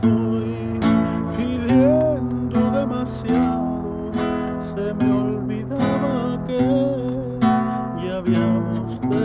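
Acoustic guitar strumming chords in a steady rhythm, about one stroke every 0.8 s, with a wavering melody line above them: an instrumental passage of a Mexican ballad.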